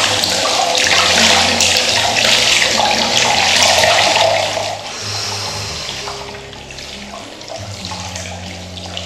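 Hot-spring water running and splashing in a tiled bath, loud for the first four seconds or so, then much quieter. Soft background music plays beneath.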